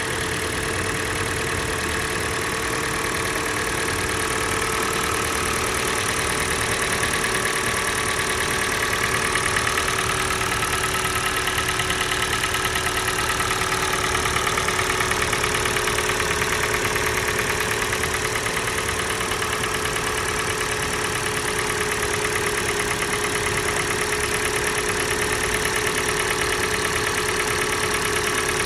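Kia Sportage's G4NA 2.0-litre four-cylinder petrol engine idling cold with a steady knock. The sound is even throughout, with a fast regular ticking running through it.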